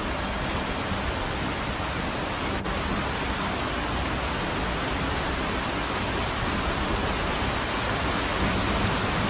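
Steady, even rushing hiss that holds level throughout.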